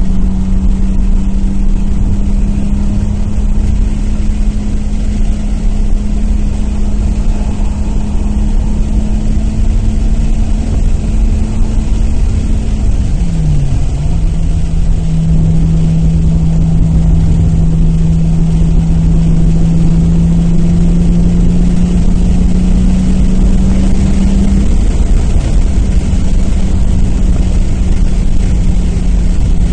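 Nissan Maxima's VQ35 V6 idling through aftermarket headers and exhaust, a loud steady low rumble with a humming drone that dips briefly about halfway through. The uploader reports a slight misfire at idle.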